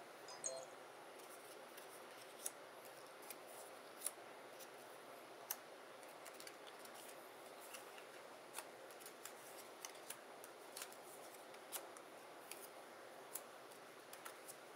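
Faint, irregular light clicks and taps of die-cut cardstock pieces being handled and set down one by one on a cutting mat, over a quiet room hiss.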